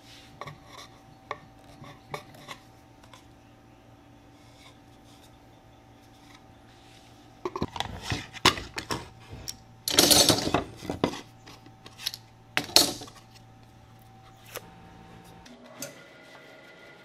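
Steel bar clamps with wooden screw handles being set and tightened on a glued paddle handle. A few light metal clicks come first, then a run of louder metallic clacks and rattles from about seven to thirteen seconds in.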